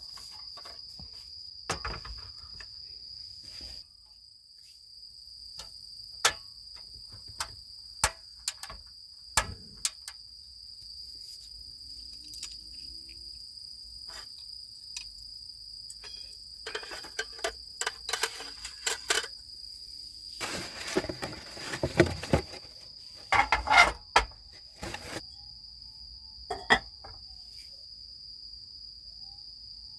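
Crickets trilling in one steady high tone, with scattered sharp clicks and knocks and bursts of clattering in the second half.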